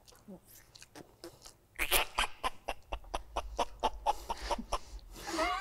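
A man gagging and dry-heaving in a rapid string of short spasms, starting about two seconds in: he is close to throwing up from eating a huge burger too fast.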